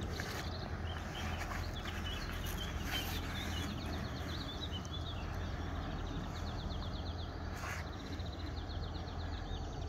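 Small birds chirping and trilling repeatedly over a steady low rumble, with a few brief splashes of water from a large carp shifting in a wet sling at the water's edge.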